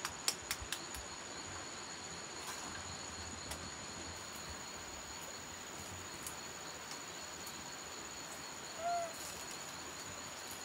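Insects chirring steadily in two high tones. A run of quick, even taps ends about a second in, and a short squeaky call sounds about nine seconds in.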